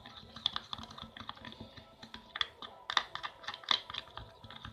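A thick tapioca-starch and water mixture being stirred: quick, irregular clicks and scrapes of the stirring utensil against its container.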